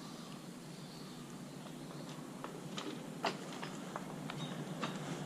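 Faint outdoor background hiss with scattered small clicks and knocks, most of them in the second half, one a little louder about three seconds in.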